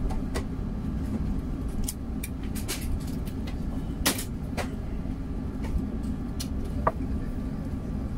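Cabin noise of an Airbus A380 taxiing slowly, with the steady low rumble of its Rolls-Royce Trent 900 engines at idle. Scattered sharp clicks and knocks come from around the cabin, the loudest about four seconds in.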